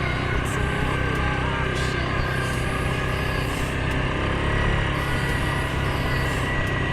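Suzuki KingQuad 750 ATV engine running steadily at an even speed while riding a trail, with a thin steady whine above the engine note and short scraping rustles now and then.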